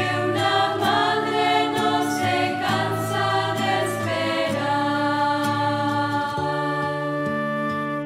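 Music: a Catholic hymn sung by a choir over sustained accompaniment, the voices moving in the first half and settling into long held notes in the second.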